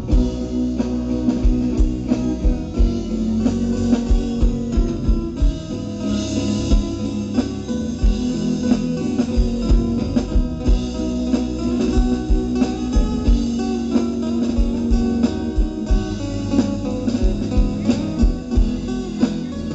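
Live band music without vocals: guitar over bass and a drum kit keeping a steady beat, an instrumental break between choruses of a pop-rock song.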